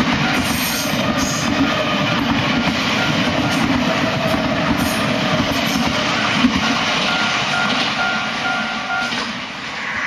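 Nankai Kōya Line electric commuter trains, an 8200 series and a 6000/6200 series set, passing each other over a level crossing with a steady rumble and clatter of wheels on rail. In the last few seconds the train noise eases and a level-crossing alarm rings in a repeating on-off tone.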